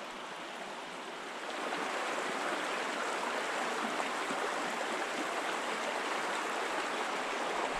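Small mountain creek running, a steady rush of water that gets louder about a second and a half in.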